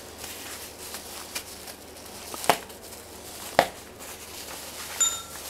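Bubble wrap crinkling as it is cut and pulled off a bundle of steel bars, with two sharp clicks, then a short metallic ring near the end as the steel bars clink together.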